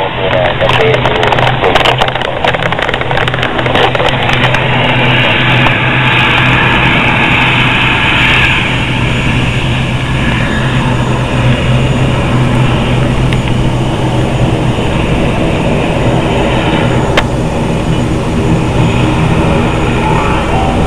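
ATR 72 twin-turboprop airliner's engines and propellers running as it taxis, a steady low drone with a rushing hiss over it. Crackling wind or handling noise on the microphone in the first few seconds.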